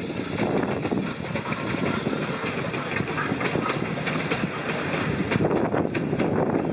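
Steam-hauled train of RX-class locomotive RX 207 running, its wheels clattering over the rail joints in a quick run of clicks. A high hiss joins in about a second in and stops about a second before the end.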